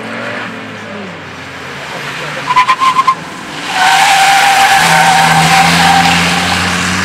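Volvo estate car cornering hard on a wet track: about two and a half seconds in its tyres give a quick run of loud short chirps, then from about four seconds they squeal steadily as the car slides through the bend, with the engine running underneath.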